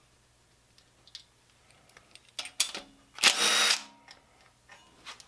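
Cordless impact driver spinning briefly, about three seconds in, backing an oil pan bolt out of an LS engine block. A few light metallic clicks of socket and bolt come before it.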